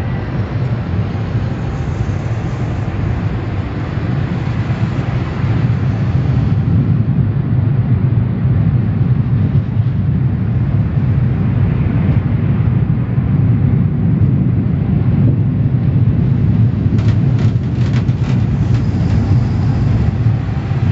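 Automatic tunnel car wash equipment heard from inside the car's cabin: a steady low rumble, with a few sharp ticks near the end.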